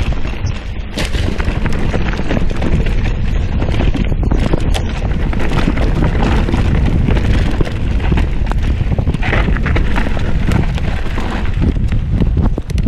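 Mountain bike rolling fast over a rough dirt and rock singletrack, with the steady rattle and knocks of the bike over the bumps and wind buffeting the microphone.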